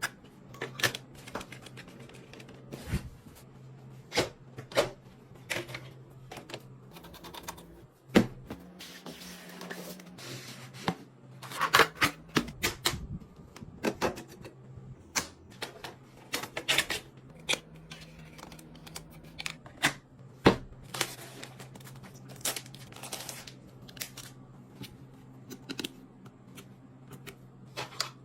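Irregular clicks, taps and clatter of computer parts being handled and fitted together during a PC build, with a few louder knocks, over a steady low hum.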